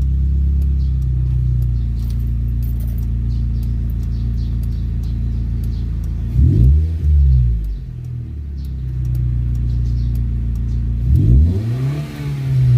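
2003 Nissan Sentra engine idling steadily, blipped twice on the throttle: the revs rise and fall back about six seconds in and again near the end. The steady idle shows the rough idle settled after cleaning the throttle body and idle air control valve.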